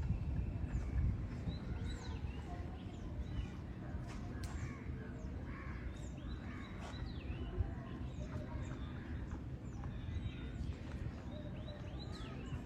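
Crows cawing and other birds calling, many short calls scattered throughout, over a steady low rumble.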